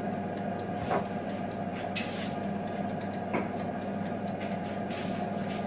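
Steady low electrical hum with a few light knocks, about a second in and again about three and a half seconds in, and a short rustle about two seconds in.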